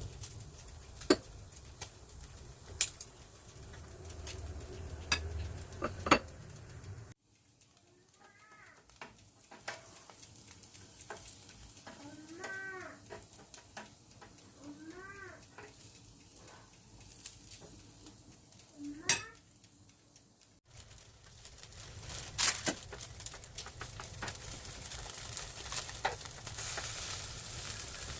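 Marinated pork sizzling on an electric grill, with sharp clicks and taps of utensils. The sound breaks off abruptly twice. The quieter middle stretch has a few short chirping calls.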